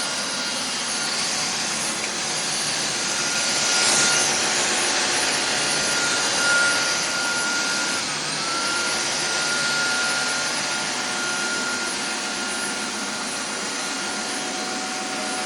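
Tineco Floor One S9 Artist wet-dry vacuum running steadily, its suction motor giving a constant high whine that dips briefly and recovers about halfway through.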